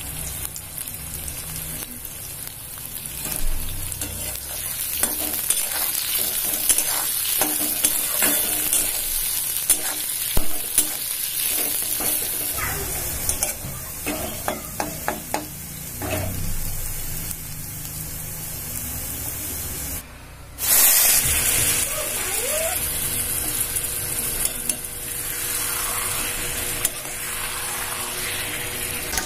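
Food sizzling in hot oil in a kadai, first sliced onions and later yogurt-marinated chicken, stirred with a metal spatula that scrapes and clicks against the pan. About two-thirds through the sizzle breaks off for a moment and comes back louder.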